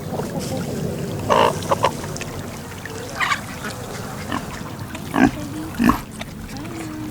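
Farm animals calling, several short loud calls over a steady low background noise.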